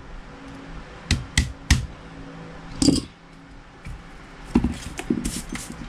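Light clicks and knocks of small parts being handled and tapped on a plastic airsoft pistol frame while a pin is set: three quick knocks about a second in, another near three seconds, and a cluster near the end.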